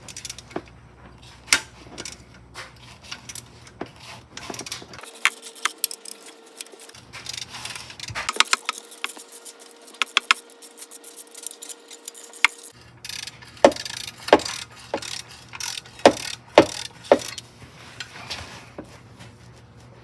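Metal hand tools clicking and clinking against bolts and engine parts, in irregular sharp clicks with a denser run of rapid clicks in the middle.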